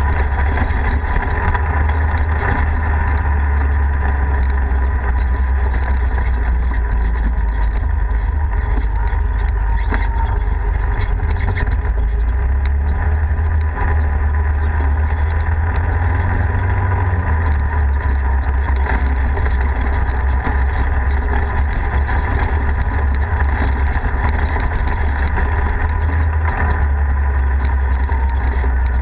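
Polaris RZR side-by-side engine running steadily as it drives along a rough dirt road, a continuous drone with a strong low rumble.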